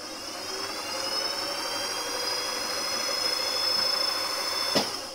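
Benchtop milling machine spindle motor spinning up with a rising whine, then running at a steady high pitch. It cuts off with a sharp click near the end.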